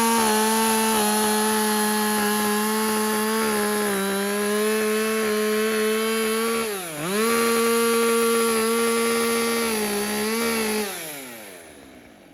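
Two-stroke chainsaw running at high revs, cutting wood. The engine note dips sharply and recovers about seven seconds in, then the revs fall away and the sound fades out near the end.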